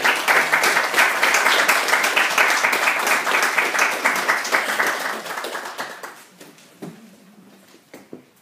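Audience applauding, a dense run of handclaps that fades out about six seconds in.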